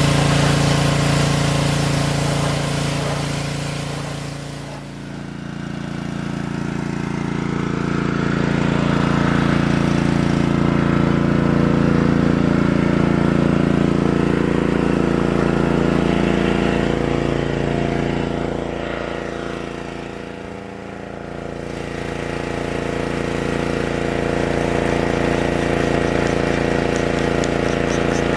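Gasoline pressure washer's small engine running steadily, with its loudness dipping briefly twice.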